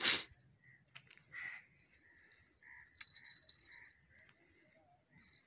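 A brief loud thump right at the start, then the faint metallic ticking of a spinning reel being wound as a hooked fish is played in. A crow-like bird caws several times over it.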